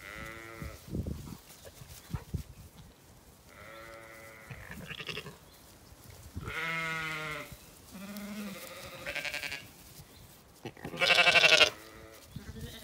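Zwartbles sheep bleating: about six separate baas from different sheep, some deep and some higher, each under a second long. The loudest comes near the end, from a sheep close by.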